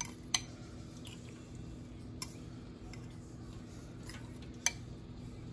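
A steady low hum with three sharp clicks, about two seconds apart.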